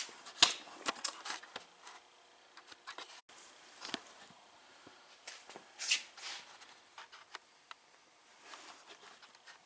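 Scattered, irregular clicks and knocks of metal parts and tools being handled on an ATV's rear axle assembly, the loudest about half a second in and about six seconds in.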